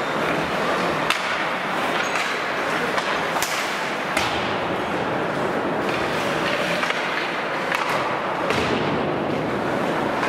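Ice hockey play on the rink: skate blades scraping and carving the ice in a steady hiss, with several sharp clacks of sticks and puck.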